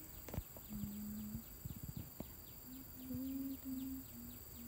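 Outdoor ambience: a faint high chirp repeating about four times a second, with a low hum coming and going in short stretches and a few light knocks.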